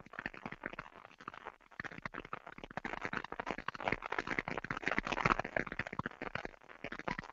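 Dense crackling and rustling on a video-call microphone line, made of many irregular clicks, loudest between about four and six seconds in. It fits a microphone that is cutting out badly.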